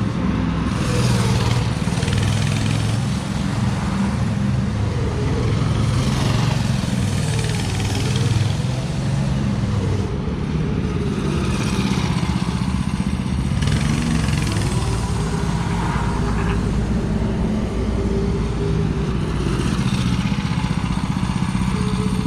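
A go-kart's small engine running and being driven around, its revs rising and falling again and again.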